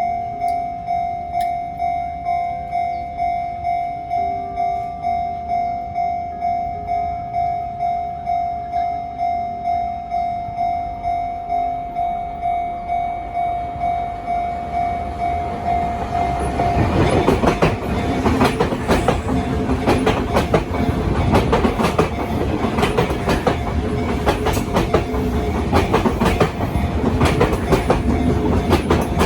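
Japanese level-crossing warning bell ringing, a steady electronic ding repeating evenly. About 17 seconds in a Sotetsu Main Line train runs through the crossing, wheels clattering rhythmically over the rail joints and drowning out the bell.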